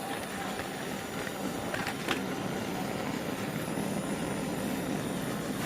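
Air-aspirated soldering torch burning MagneGas2, its flame running with a steady rushing hiss while it heats a copper pipe joint. A couple of faint clicks come about two seconds in.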